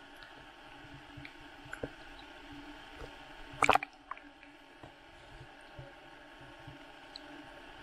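Sea water lapping and sloshing against a camera's waterproof case at the water surface, with scattered small ticks and one loud splash a little under four seconds in.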